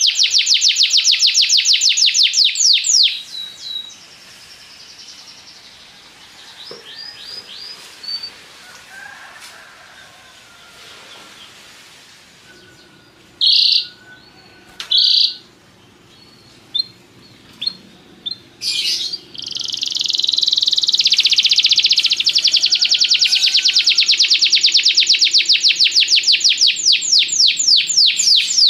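Domestic canary singing. It opens with a loud, fast trill of rapidly repeated high notes, breaks into softer scattered phrases with two short loud bursts midway, then goes into a long, fast rolling trill for the last third.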